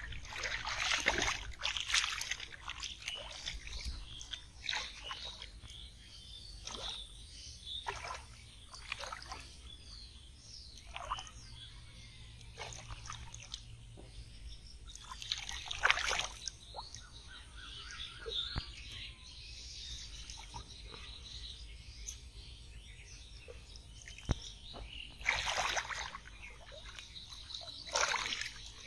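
Hands splashing and sloshing in shallow muddy water while groping for carp in the mud, in irregular splashes. The loudest come about a second in, about halfway through, and twice near the end.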